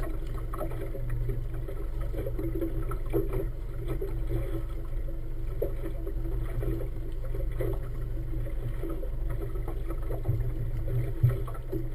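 Motorboat engine running at low speed, a steady low hum. A brief knock sounds near the end.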